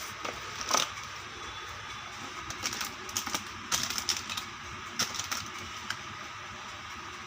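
Small plastic toy kitchen pieces being handled, with light clicks and taps coming in irregular clusters; the sharpest click comes about three quarters of a second in.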